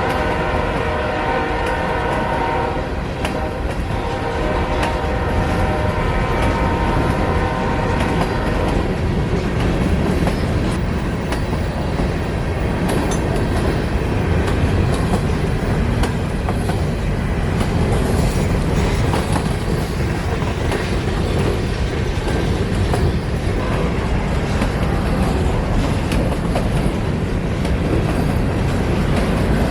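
Air horn on Norfolk Southern's Norfolk & Western heritage locomotive sounding a chord. It breaks off briefly about three seconds in, sounds again and stops about nine seconds in. Then the train rumbles past, with wheels clicking over the rail joints.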